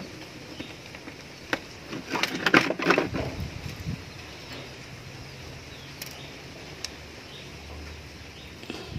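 Small metal clicks and rattles from handling a speargun's metal trigger mechanism, with a quick burst of them about two to three seconds in, then a few faint ticks.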